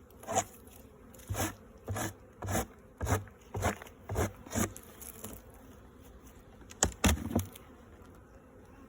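Honeybees buzzing around a hive, with short loud buzzes as bees fly close past the microphone, about two a second for the first few seconds and again about seven seconds in.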